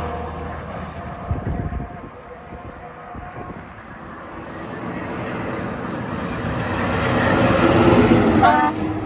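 A Kenworth W900B2 dump truck fades as it drives away. Then an International 4700 dump truck comes up and passes close by, its engine and tyres growing louder, and near the end its Grover 1600 air horn gives one short blast.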